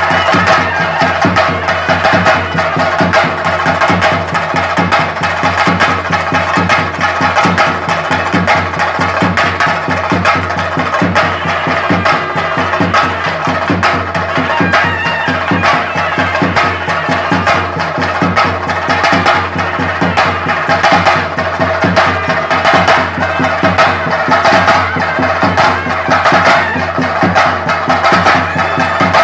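Ensemble of chenda drums played with sticks in a fast, continuous rhythm for a Theyyam dance, with steady held tones sounding over the drumming.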